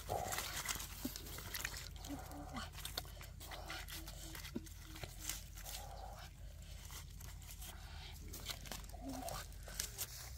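Hand stirring water in a metal wok and lifting out wet leaves while rinsing red weaver ants, their eggs and larvae: splashing, leaf rustles and small clicks against the pan, with several short mid-pitched sounds.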